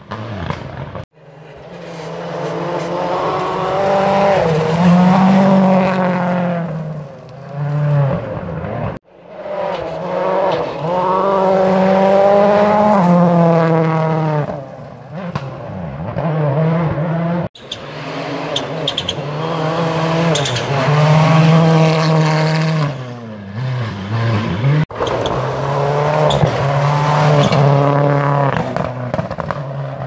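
Rally cars passing one after another at full speed, engines revving hard and rising and falling through the gear changes. There are four passes, each ending with an abrupt cut to the next.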